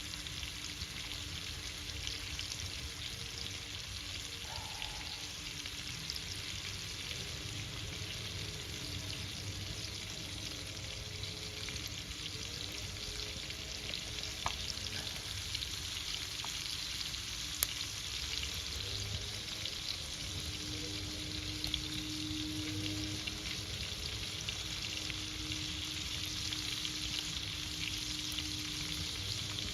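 Food sizzling in hot oil over a wood fire: a steady hiss with scattered small crackles and pops.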